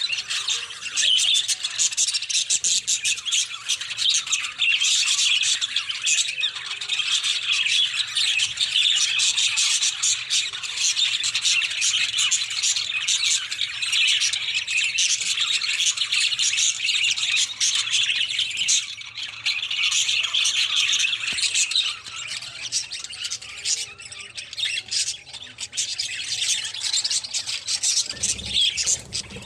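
A group of budgerigars chattering continuously, a dense mix of rapid chirps and squawks that thins out somewhat in the last third.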